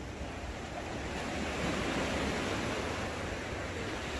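Ocean surf breaking on the beach: a steady roar of rushing water that swells about halfway through.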